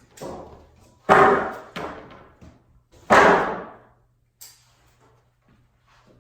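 Wooden boards being handled and set down: two loud thuds about two seconds apart, with lighter knocks between.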